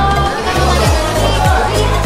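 Background music with a steady beat and deep bass notes that slide down in pitch.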